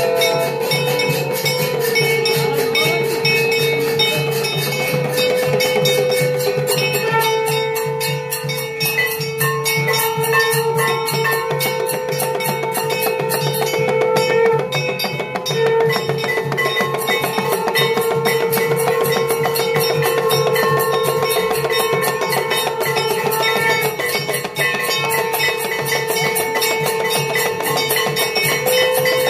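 Live temple aarti music: bells and drums struck rapidly and without pause, under a slow melody of long held notes.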